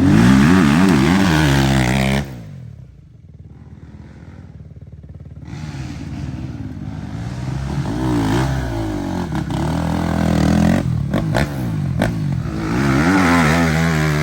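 Dirt bike engine revving hard, its pitch rising and falling with the throttle. The revs drop away sharply about two seconds in, stay low for a few seconds, then climb again to a second loud burst of revving near the end.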